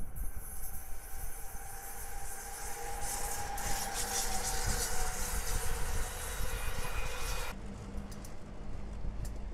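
Amtrak electric locomotive and passenger cars passing close by at speed: a rush of wheel and rail noise with a steady whine, loudest in the middle. About three-quarters of the way through it cuts abruptly to a quieter, steady low hum of a diesel locomotive approaching.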